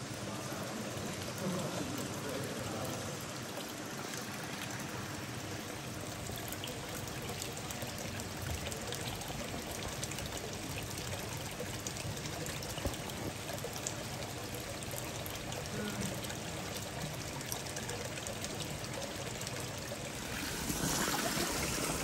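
Water running steadily into an indoor koi pond: a constant, even trickling and splashing, a little louder near the end.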